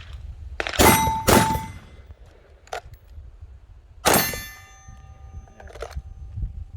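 Pistol shots, two about half a second apart and a third about three seconds later, each followed by the ringing of a struck steel target.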